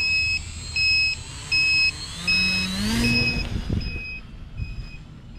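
RC transmitter alarm beeping steadily, about one short pure beep every three-quarters of a second, a warning that goes with the flight battery running low. Under it the electric motor of the RC plane whines and rises in pitch as it is throttled up about two seconds in, loudest near the middle; after that the beeps are fainter.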